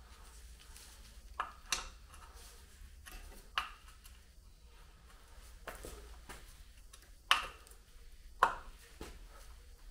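Hand tool knocking against the MGB's rear axle filler plug as it is refitted and tightened: about six sharp metallic knocks, a second or two apart.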